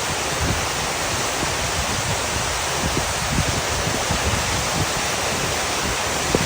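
Wind buffeting the microphone in gusts over a steady rushing hiss of wind and rain.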